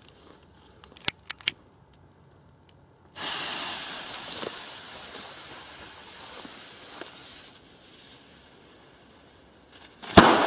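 A few sharp clicks of a lighter. Then a firecracker's fuse hisses loudly for several seconds, slowly dying down, and near the end the firecracker stuck in a cucumber goes off with a single sharp bang.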